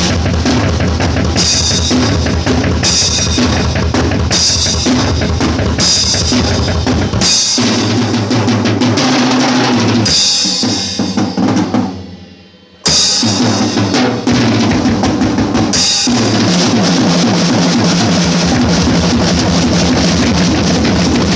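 Drum kit played solo: fast, dense bass drum and snare with cymbal crashes about every second and a half. About halfway through the playing stops and a cymbal rings out and fades for about a second, then the drumming comes back in hard.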